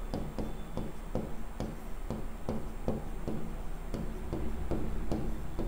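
A steady run of light ticks or taps, about three a second.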